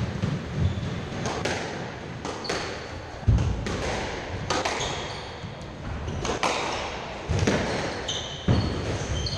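Squash rally: the ball struck by rackets and hitting the court walls in sharp knocks about once a second, the loudest about three seconds in, with court shoes squeaking on the wooden floor between shots.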